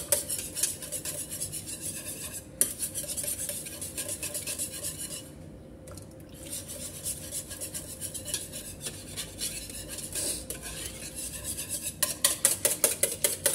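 Wire balloon whisk beating cream and milk in a ceramic bowl, its wires clicking rapidly against the bowl. The strokes go quieter for about a second about five seconds in, then pick up faster near the end.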